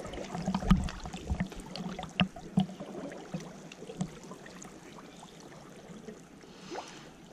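Water splashing and dripping as a trammel net is hauled in from a reservoir, with irregular splashes and knocks in the first few seconds, then quieter sloshing.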